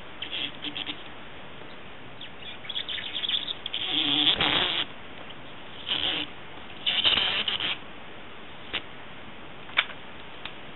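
Squeegee card scraped in uneven strokes over a Speck screen protector film, a squeaky rubbing that is longest about four seconds in and again about seven seconds in, with a few sharp clicks near the end.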